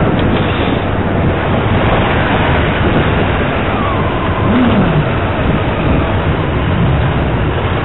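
Steady rush of wind and road noise while riding a motorbike through city traffic, with engines all around. A brief rise and fall in pitch comes about halfway through.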